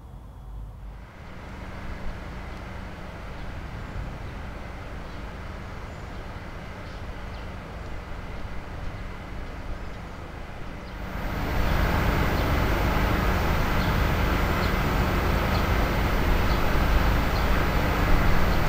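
Steady outdoor background noise with a heavy low rumble like distant traffic. It gets clearly louder about eleven seconds in, and faint small ticks repeat at regular spacing.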